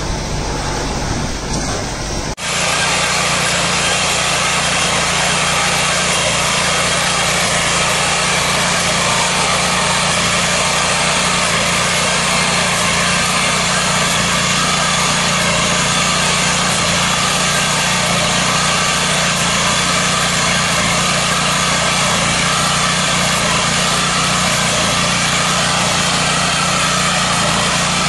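Small engine of a walk-behind rice reaper running steadily under load as it cuts standing rice. It begins abruptly about two seconds in, replacing a different machine sound.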